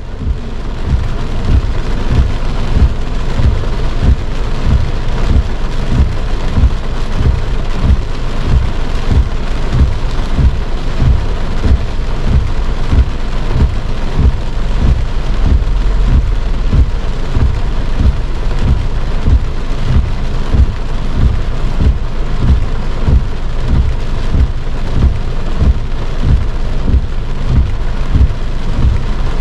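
Heavy rain drumming on a car's roof and windshield, heard from inside the car: a steady hiss with dense, irregular thuds of large drops.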